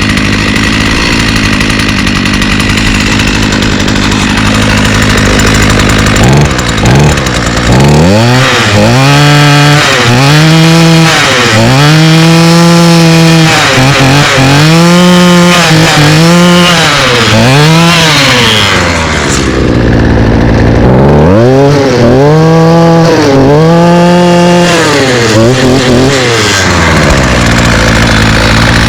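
A 2009 Craftsman full-crank 33cc two-stroke string trimmer engine, just started on the first pull, idles and is then revved up and down in a run of about six throttle blips. It drops back to idle briefly, then gets about four more blips before settling to idle again, running all right.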